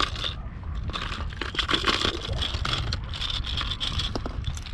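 Hard plastic fishing lures clicking and rattling against each other and the sides of a clear plastic tackle box as it is rummaged through, over a steady low rumble of wind on the microphone.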